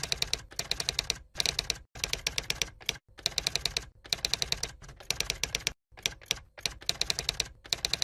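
Fast, even clicking at about ten clicks a second, in short runs broken by brief pauses, like rapid typing.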